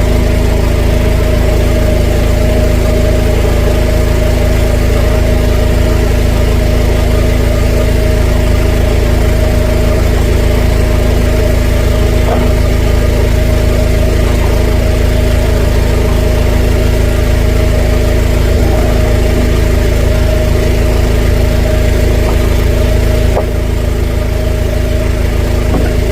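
Drain jetter's engine running steadily at a constant speed, powering the high-pressure water jet used to clear the blocked drain; its level drops slightly near the end.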